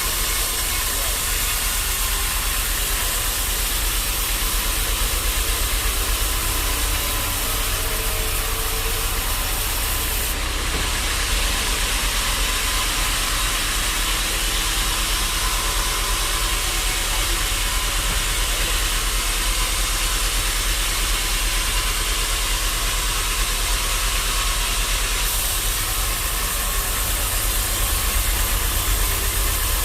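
Sawmill machinery running steadily: a constant low motor hum under a loud high hiss, with the hiss changing about ten seconds in and again later.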